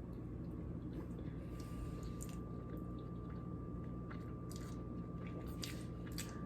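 A person chewing a bite of soft, warm homemade banana bread, with faint, irregular mouth clicks over a steady low hum.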